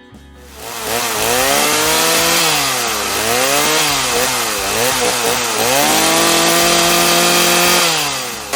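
Chainsaw running, its motor revved up and let fall back several times. Near the end it is held at high speed for about two seconds, then drops.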